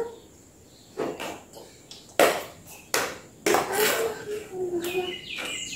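Clothes being handled and shaken out during laundry folding: a few sharp snaps and rustles of fabric, the loudest about two seconds in. A short wordless voice and some high chirps follow in the second half.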